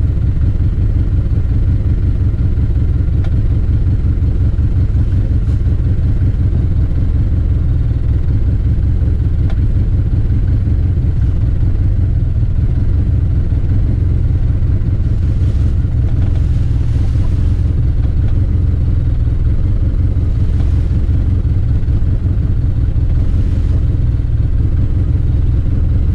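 Arctic Cat Wildcat 700 Trail side-by-side's twin-cylinder engine idling steadily with a low, even rumble.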